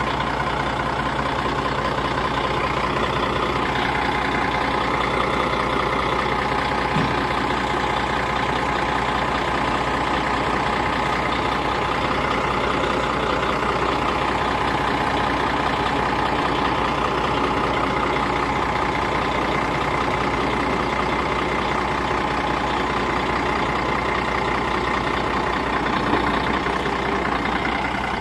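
Western Star semi truck's diesel engine running at idle: a steady low hum, with a higher whine that drifts gently up and down in pitch.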